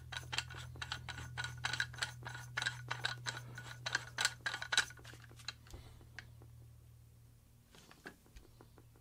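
A 14mm airsoft silencer being twisted by hand on the threaded barrel of an Umarex Glock 17 CO2 air pistol: a quick run of small clicks and scrapes for about five seconds, then a few scattered faint clicks.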